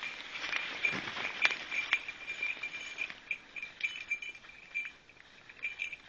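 Footsteps crunching through dry fallen leaves and twigs, with a thin high ringing from the dog's collar that comes and goes in short irregular pulses as the dog works through the undergrowth.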